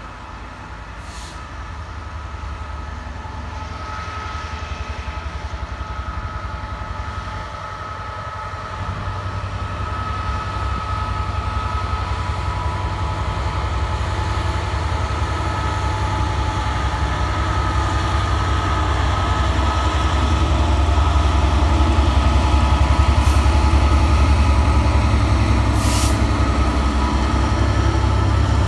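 GB Railfreight Class 66 diesel locomotive, with its EMD two-stroke V12, pulling a freight train out of the yard at low speed. A deep engine throb sits under a steady whine and grows louder as the locomotive nears and passes close. The box wagons then roll by, with a couple of brief hissing squeaks near the end.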